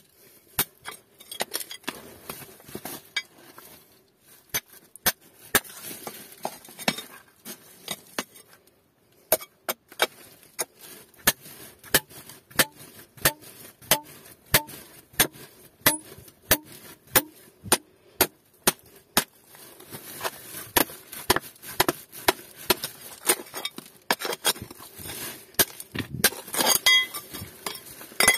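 Hammer blows on a ribbed steel bar used as a chisel, chipping gold-bearing ore out of the rock vein. A steady run of sharp metallic clinks roughly every half second, with a brief pause about a third of the way in.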